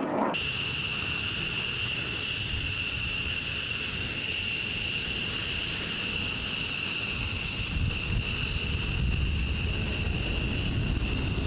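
F-15 Eagle's twin jet engines at taxi power: a steady high-pitched whine over a rush of exhaust. A deeper rumble grows in the second half as the jet rolls past.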